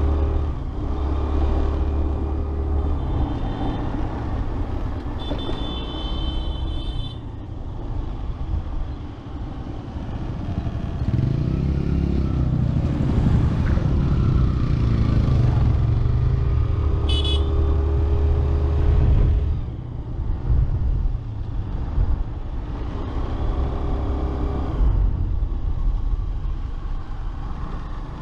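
Yamaha Street Rally motorcycle engine running at road speed, heard from the rider's seat with wind on the microphone. The engine gets louder from about eleven to nineteen seconds in, its pitch rising and falling. A horn sounds for about two seconds about five seconds in, and a brief high toot follows near seventeen seconds.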